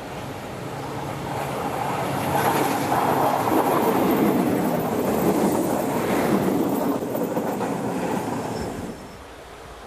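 A train passing close by on the rails. It grows louder over the first few seconds, stays loud through the middle, then drops away about nine seconds in.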